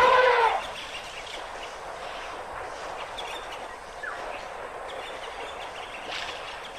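A loud animal-like call that falls in pitch over the first half-second, then a steady outdoor ambience with a few faint, short bird-like chirps.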